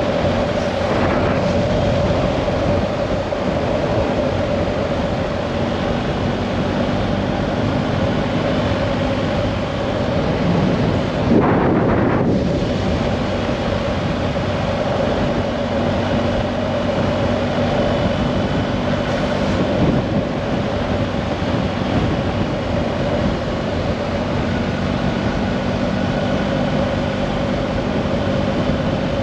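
An engine running steadily with a constant hum, with wind blowing on the microphone and a brief gust of noise about twelve seconds in.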